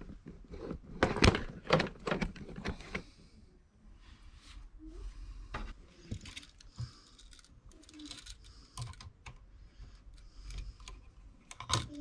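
Irregular light clicks and knocks of handling noise, busiest in the first three seconds, as the camera is moved and a new duplex outlet receptacle and its stiff house wires are handled at an open wall box.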